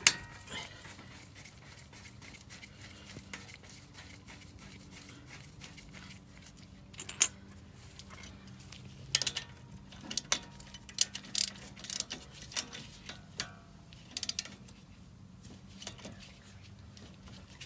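Scattered metallic clinks and clicks of hand tools and brake caliper hardware being handled as a front disc brake caliper is put back together over new pads, with a sharp clink about 7 seconds in and a quick run of them a little later.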